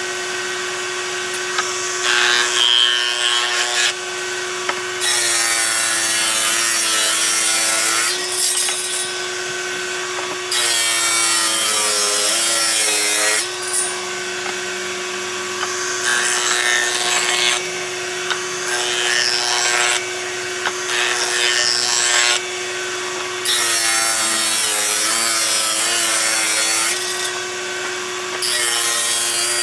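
Electric power saw running with a steady hum and making several cuts through wood; the motor's pitch sags under load during each cut.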